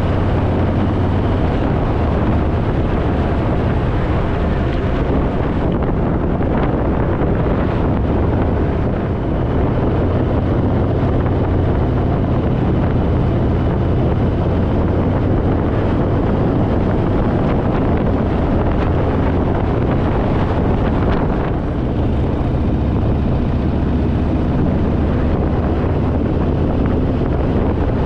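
Harley-Davidson Fat Boy's V-twin engine running steadily at cruising speed, with wind rushing over the microphone.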